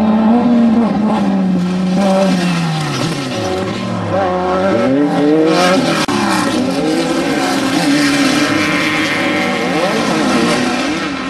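Off-road desert race vehicle engines running at speed. The engine note holds, falls about three seconds in, then climbs again around the middle, with more than one engine note heard at once.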